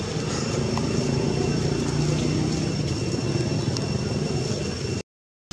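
Steady low rumbling outdoor background noise that swells over the first few seconds, with a thin high steady whine above it. The sound cuts off abruptly about a second before the end.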